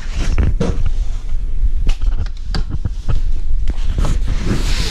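Camera handling noise: a run of irregular knocks and rubbing on the microphone over a low rumble as the camera is moved about, with a brief hiss near the end.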